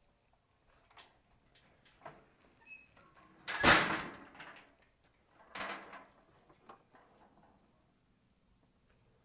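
Aluminum tri-fold motorcycle ramp being unfolded by hand: a few light clicks, then a loud metal clatter about three and a half seconds in and a second, smaller clatter about two seconds later as the hinged panels swing open.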